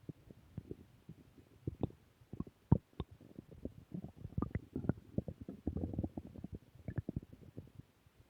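Human stomach growling: a run of irregular low gurgles and small pops, coming thicker in the second half.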